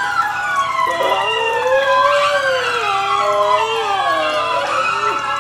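A man screaming in horror: one long, high-pitched, wavering wail that bends up and down in pitch, with brief breaks.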